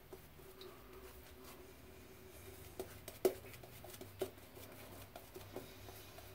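Synthetic shaving brush painting lather onto the face: faint brushing with a few scattered light clicks, the sharpest about three seconds in.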